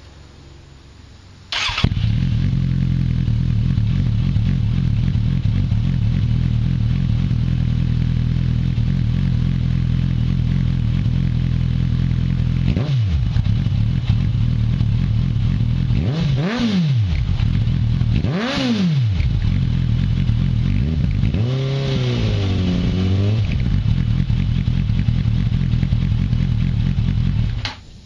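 Motorcycle engine with a Delkavic exhaust, its baffle removed, starting about two seconds in and idling steadily. It is revved briefly three times, then blipped quickly several times in a row, and switched off just before the end.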